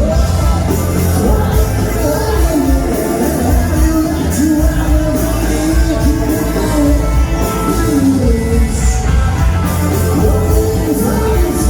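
Live rock band playing loud amplified music at a concert, recorded from the audience, with no clear lyrics.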